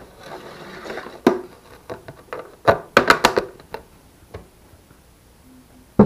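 Handling of a plastic fuel tank and small metal fittings: a brief rubbing, then a few sharp knocks and clicks, bunched together in the middle and growing sparse and quiet toward the end.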